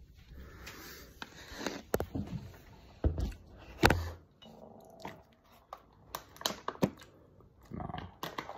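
Close-up eating noises: irregular wet clicks, smacks and chewing, mixed with knocks and thumps from a phone being handled and set down.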